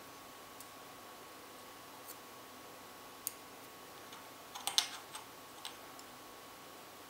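Small clicks and taps of fingers working the metal connector plate of a vape box mod while fitting a rubber insulator onto the connector: a few scattered single clicks, with a quick cluster of clicks about four and a half seconds in. A faint steady high tone runs underneath.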